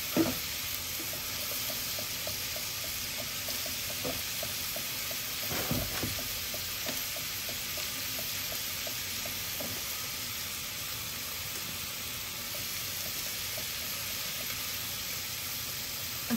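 Butter and chopped onion, celery and bell pepper sizzling steadily in a stainless steel saucepan while a small whisk stirs in flour for a roux, its wires ticking lightly and repeatedly against the pan.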